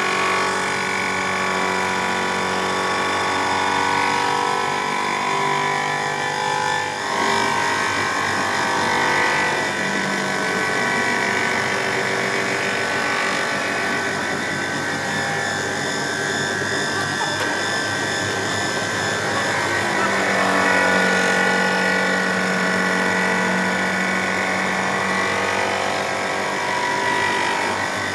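Electric power tool running with a continuous motor whine that shifts in pitch a few times.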